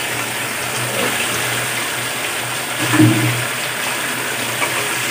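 Thick red chilli sauce bubbling and sizzling in a wok as pieces of fried chicken tumble in and are stirred with a wooden spatula: a steady rushing hiss, with a short low sound about three seconds in.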